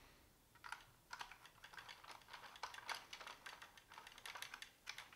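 Faint, irregular clicking and tapping of a hard plastic vintage Kenner X-Wing toy being handled and turned over in the hands.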